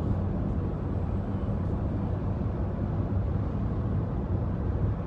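Steady low rumble of road and engine noise inside a moving truck's cabin.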